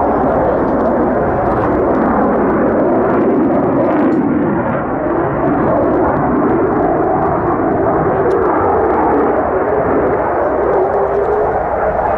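Swiss Air Force F/A-18C Hornet's twin turbofan engines, a loud, steady jet noise during a display flight, with its pitch rising a little near the end.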